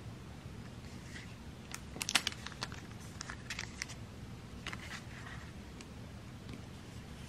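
Paper postcards being handled and slid across a tile floor: light clicks, taps and rustles in small clusters, the loudest about two seconds in, more around three and a half and five seconds.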